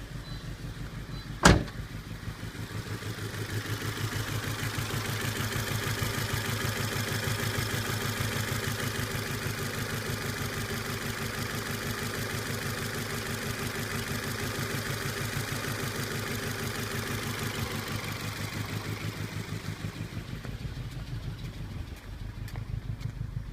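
Volvo S40 engine idling roughly with an even, pulsing miss: a misfire, caused by two dropped valves leaving cylinder 4 with no compression. A single sharp click comes about a second and a half in.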